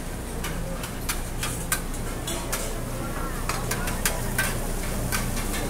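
Street-food stall frying: food sizzling, with many sharp clicks and clatters of cooking utensils scattered through it, over a steady low hum.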